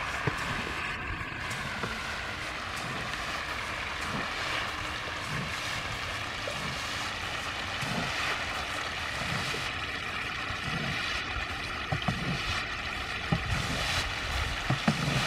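Steady churning and splashing of a dense mass of catfish thrashing at the pond surface as they feed on scattered pellets. Occasional low thumps are heard, with louder ones near the end.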